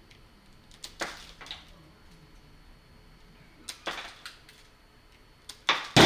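Wire strippers and 12-3 electrical cable being worked by hand: a few short, separate clicks and scrapes, with the loudest sharp snap just before the end.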